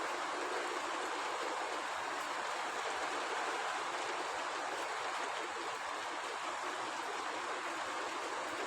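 Steady, not very heavy rain falling: an even, unbroken hiss of drops.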